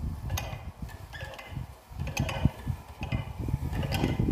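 Hand-cranked well windlass paying out its steel cable to lower a wooden seat board into a concrete-ring well: irregular metallic clicks and knocks, about one a second, over a low rumble.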